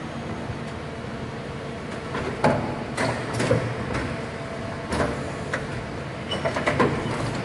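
Okuma MC-5VA vertical machining centre running on a test run: a steady machine hum, broken from about two seconds in by a series of sharp knocks at uneven intervals.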